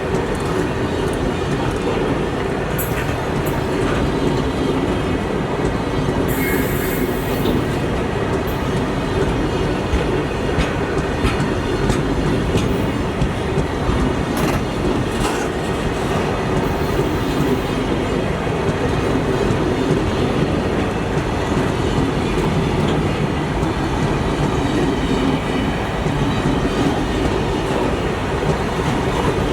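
Indian Railways train running along the track: a steady rumble of wheels on rail with the clickety-clack of rail joints, no horn.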